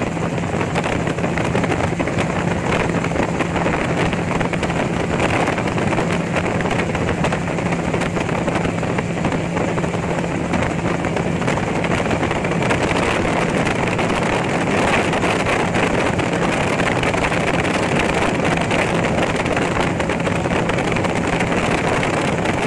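Gyrocopter engine and propeller running at a steady cruise in flight, a constant drone with a steady low hum, heard from the open cockpit with wind rushing over the microphone.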